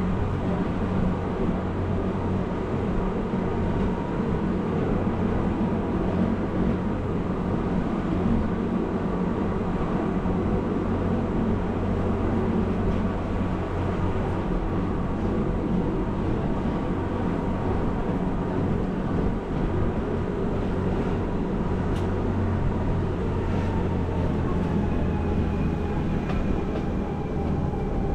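Gornergrat Railway electric cogwheel train running steadily: a constant low drone with steady motor tones, and a faint thin squeal near the end.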